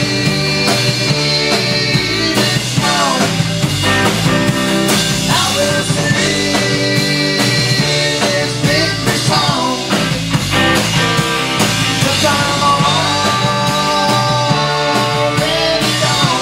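Live rock band playing: two electric guitars, bass guitar and drum kit, loud and continuous.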